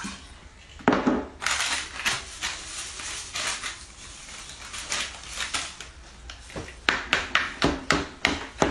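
Dishes and utensils clattering: a knock about a second in, then a quick run of sharp clinks against a bowl near the end.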